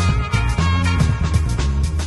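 Intro music with a steady beat and a strong bass line.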